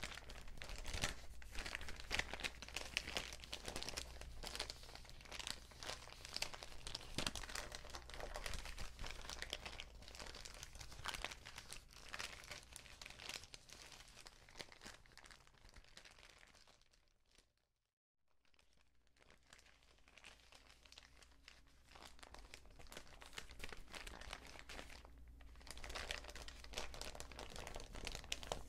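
Paper bags being crinkled and crumpled in a dense, continuous crackle. The crackle fades away about two-thirds of the way through, breaks off for about a second, then builds back up near the end.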